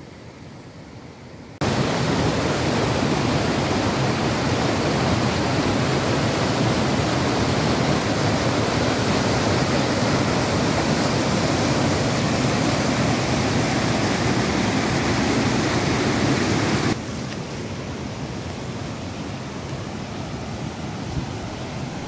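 Water of a stream rushing over rocks, a steady rushing noise. It jumps suddenly louder about two seconds in and drops back abruptly about five seconds before the end.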